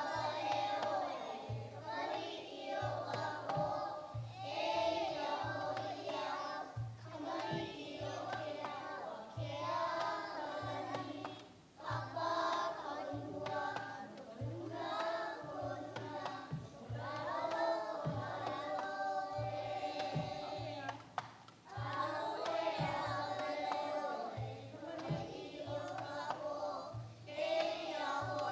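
A group of young children singing a hula song together in unison, over a steady low beat about twice a second, in phrases with short breaks between them.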